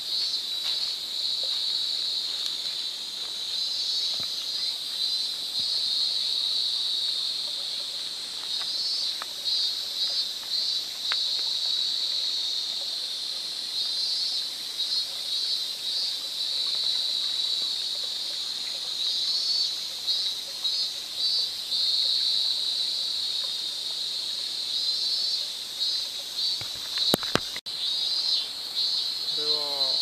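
Insects calling in a steady high-pitched chorus, with pulsing trills repeating over it every few seconds. A couple of sharp clicks come near the end.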